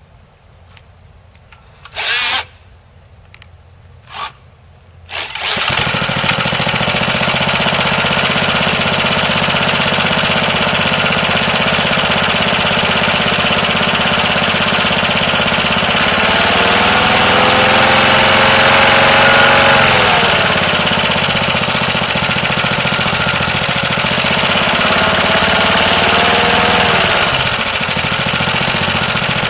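Cordless drill spun in a few short bursts on the lawnmower engine's top to crank it, then the mower's small gasoline engine catches about five seconds in and runs steadily. Its speed rises and falls twice later on.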